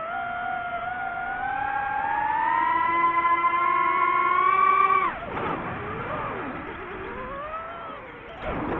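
DJI FPV quadcopter's motors and propellers whining, the pitch rising steadily as the throttle is pushed up for about five seconds, then dropping suddenly as the throttle is cut and wavering up and down through a manoeuvre before climbing again near the end.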